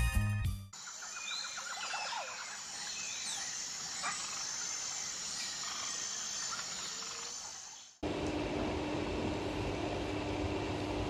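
Music cuts off in the first second, then outdoor ambience: small birds chirping, with a short trill, over a steady hiss. About eight seconds in it switches abruptly to indoor room tone with a steady low hum.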